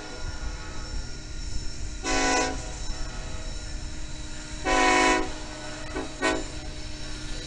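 Union Pacific diesel locomotive's air horn sounding for a grade crossing: one blast about two seconds in, a louder blast about five seconds in, then two quick short toots near the end. The train's steady rumble runs underneath.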